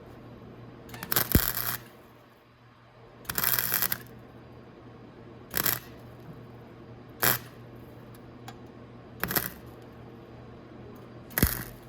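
Welding arc on a broken motorcycle muffler, struck in six short tack-weld bursts a second or two apart, the first two a little longer than the rest. The tacks are kept brief so as not to melt through the muffler's thin metal.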